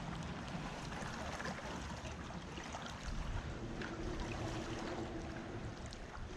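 Steady wash of shoreline water and wind, with faint scattered ticks and a faint steady hum for about two seconds in the middle.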